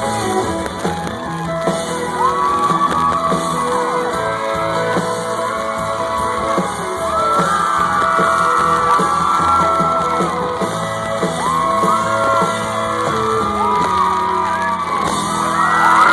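Live country band playing on without vocals, with audience members whooping and yelling over the music. The crowd cheering swells near the end.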